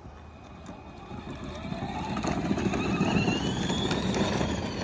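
A motor vehicle's engine running and growing louder, its whine rising in pitch over a few seconds as if accelerating.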